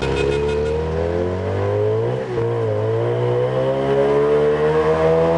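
An engine running and revving up, its pitch climbing slowly with a brief dip about two seconds in.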